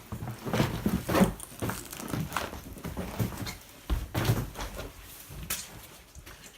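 Irregular knocks, bumps and scuffing of people clambering and moving about in a small room, the noises dying down near the end.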